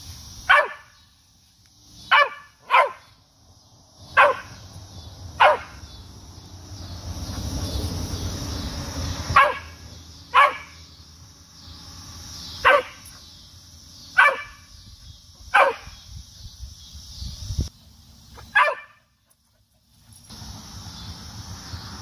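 Cocker spaniel barking up into a tree at a cicada: about eleven single sharp barks at uneven intervals, a few of them close together. Behind them runs a steady high drone from cicadas in the tree.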